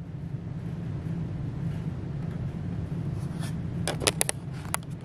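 Quiet room tone: a steady low hum, with a few short, light clicks and knocks about four seconds in.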